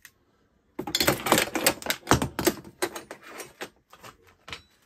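Rapid clatter of metal clicks from tools and parts being handled on a metal-strewn workbench, starting about a second in and lasting about three seconds, then a few scattered clicks.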